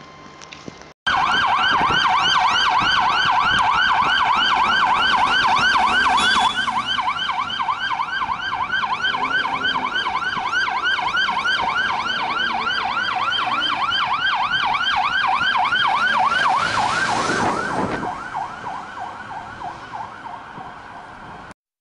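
Fire engine's electronic siren in fast yelp mode: quick rising sweeps, about four a second, loud and steady. It starts suddenly about a second in. A brief rush of noise comes about three quarters of the way through, then the siren fades and cuts off near the end.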